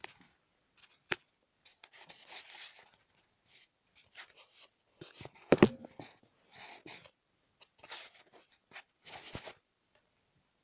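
Irregular knocks and clicks in a heating system, mixed with short bursts of rustling. A sharp knock comes about a second in, and the loudest knock about five and a half seconds in. It is the knocking whose cause is unknown.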